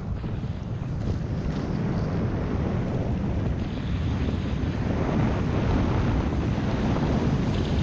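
Wind buffeting an action camera's microphone on a fast downhill run on snow, a steady rumbling rush that grows louder as the speed builds.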